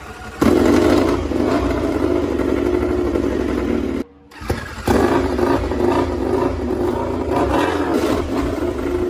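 Racing motorcycle engine running at high revs, cutting out briefly about four seconds in and then picking up again.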